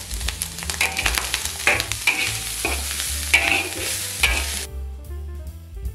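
Spatula scraping and tossing chopped taro as it sizzles in a hot pan, stir-frying it with its seasoning of pepper, five-spice powder and salt. The scraping and sizzle cut off about a second before the end.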